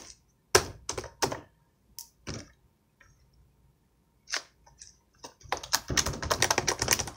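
Hand slapping and patting a lump of soft, jiggly homemade slime on a tabletop: several separate slaps in the first couple of seconds, a quiet stretch while it is lifted, then a quick run of rapid pats near the end.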